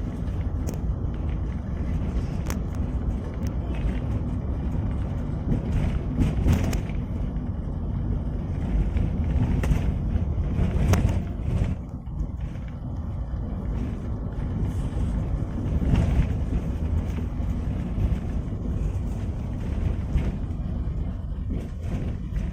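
Toyota Avanza driving over a rough, corrugated road, heard from the rear cabin: a steady low rumble of road and engine noise with scattered knocks and rattles from the bumps. The muffler's support rubbers are new, fitted to cure a tuk-tuk knock from the rear.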